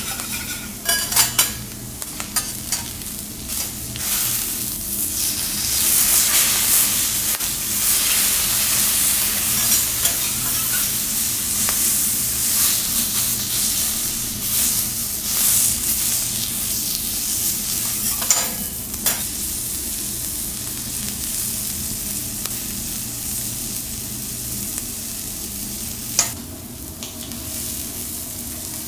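Cuttlefish sizzling on a flat steel teppanyaki griddle, a steady hiss that swells for a while and then eases. Metal knife and spatula clack against the griddle plate several times near the start and twice more later.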